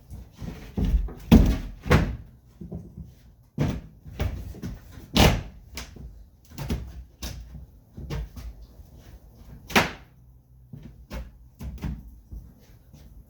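Wooden floor boards being set into a boat hull and knocked into place: a series of irregular thumps and knocks, wood on wood, with the loudest hits about a second in, near the middle and near ten seconds in.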